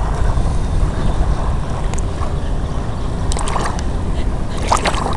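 Wind buffeting the camcorder's microphone, a steady low rumble. A couple of brief sharp sounds come about three and a half seconds in and again near the end.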